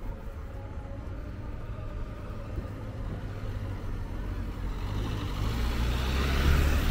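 A motor vehicle drawing near on the street, its engine rumble and tyre noise growing steadily louder toward the end.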